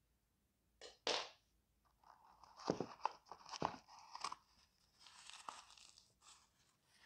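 Crinkly white packing stuffing being pulled out of the toe of a high-heel pump and crumpled in the hand: two short rustles about a second in, then a run of crackling crinkles.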